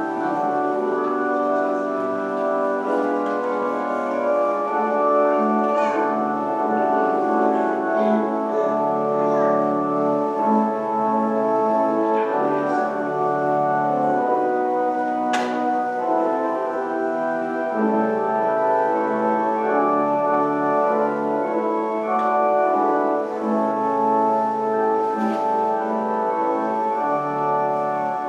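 Slow instrumental music of long held organ chords.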